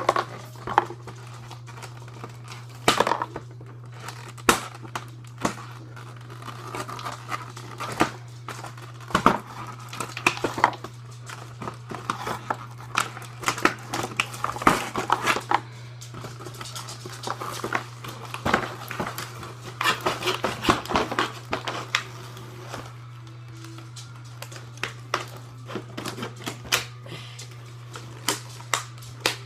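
Plastic packaging and cardboard crinkling and rustling while toy parts are handled and taken out of a box, with many irregular clicks and knocks. A steady low hum runs underneath.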